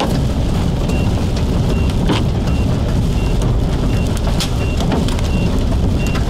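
Car interior noise while driving over a hail-covered road: a steady rumble of tyres and rain, with a few sharp knocks scattered through. A short high beep repeats a little faster than once a second throughout.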